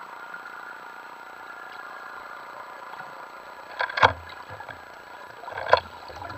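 Steady engine-and-propeller hum of a distant boat heard underwater. Two sharp knocks come about four seconds in and again about a second and a half later.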